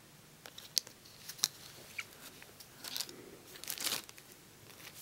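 Small packaging handled by hand: a few sharp taps and clicks of cardboard cards, then a burst of plastic crinkling about three to four seconds in.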